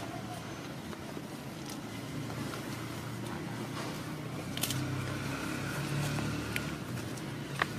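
A low engine hum drones steadily, growing louder about halfway through and easing off near the end, with a few faint clicks.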